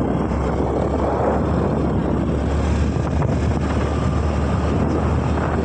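Honda Activa scooter's single-cylinder four-stroke engine running steadily while riding, with wind noise on the microphone.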